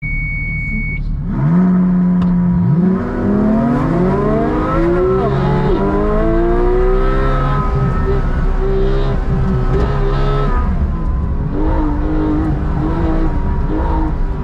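A car's engine heard from inside the cabin on a timed autocross run: held at steady revs on the line, then launched about three seconds in and revving hard at full throttle, pitch climbing through the gears to around 7,700 rpm. From about eleven seconds the engine note rises and falls in short repeated pulses as the throttle is eased on and off between the cones.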